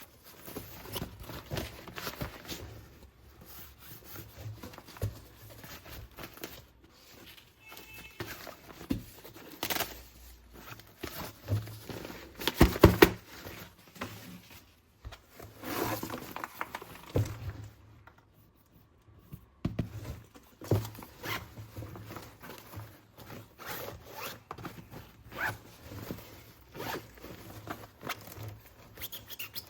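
Plastic toy weapons and packaging being handled: a string of rasping scrapes, rustles and small clicks, loudest about halfway through.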